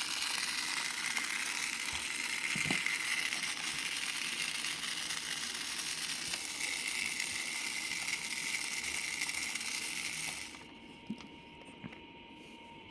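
Toy vacuum cleaner's small battery motor running with a steady hiss, switched off about ten and a half seconds in, followed by a few faint clicks.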